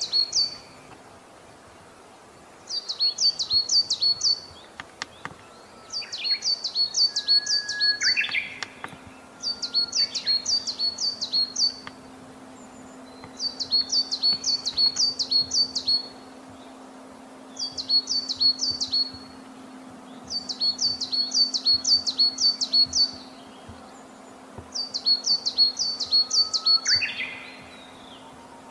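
Coal tit singing: about seven phrases, each about two seconds of quick, high, repeated two-note 'chi-pi chi-pi' notes, with pauses of a second or two between them.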